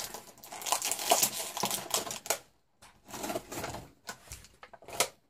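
Irregular light clicks, taps and rustles of small plastic toys and their packaging being handled, with a brief pause about halfway through.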